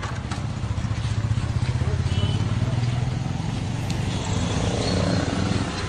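Small motorcycle engine running steadily nearby, a low pulsing drone that grows louder about a second in, over street noise.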